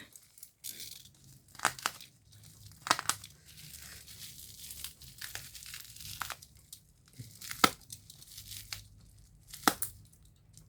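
Packing tape being peeled and torn off taped-up packaging, with plastic wrapping crinkling: a string of sharp rips and crackles at irregular intervals.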